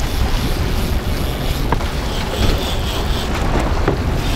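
Steady low rumble of a sportfishing boat's engine running, with wind buffeting the microphone on deck.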